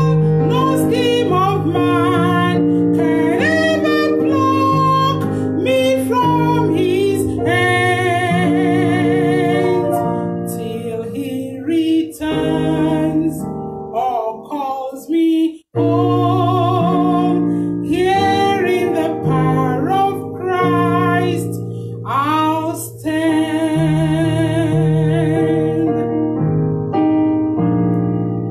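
A woman singing a slow melody with vibrato on her held notes, accompanied by an electronic keyboard playing sustained chords. There is a short break about halfway, and near the end her voice stops while the keyboard plays on.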